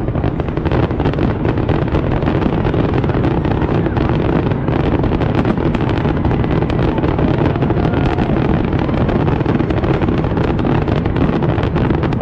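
A fireworks barrage: many rapid bursts and crackles running together into a continuous loud rumble.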